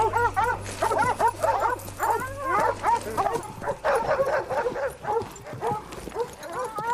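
A pack of dogs barking and yelping, many short barks overlapping rapidly.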